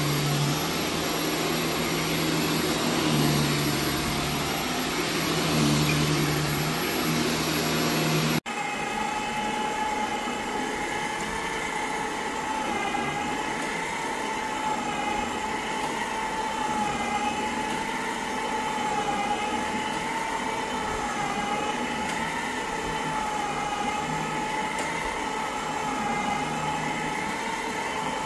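An upright vacuum cleaner runs over carpet for the first eight seconds or so. After an abrupt cut, a stainless-steel carpet brush machine runs with a steady, slightly wavering motor whine as it works prespray into the carpet.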